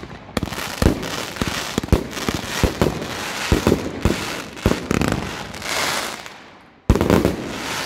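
Fireworks going off: a rapid string of sharp bangs over continuous crackling. It fades briefly about six seconds in, then a last dense burst of bangs and crackle breaks out.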